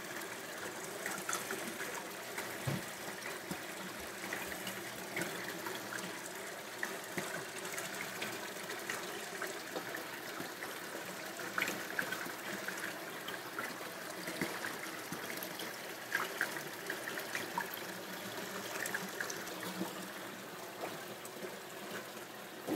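Tap water running steadily in a thin stream into a plastic basin of water, with scattered light ticks from a knife and hands working fish on a wooden cutting board.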